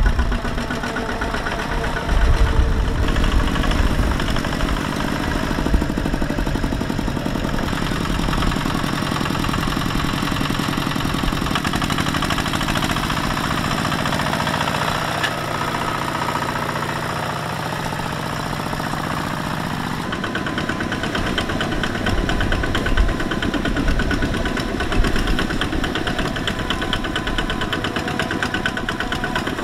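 Single-cylinder diesel engines of two-wheel walking tractors chugging steadily under load as they haul trailers through deep mud, with a fast, even knock; the engine sound changes abruptly a couple of times.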